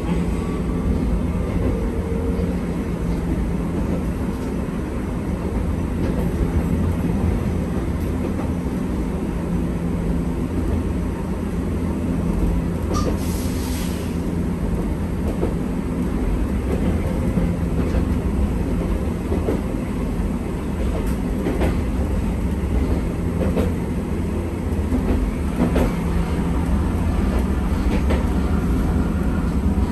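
Hankai Tramway streetcar running along its track, heard from inside the car: a steady low rumble of motor and wheels with a low steady hum, occasional clicks over the rails, and a brief hiss about 13 seconds in.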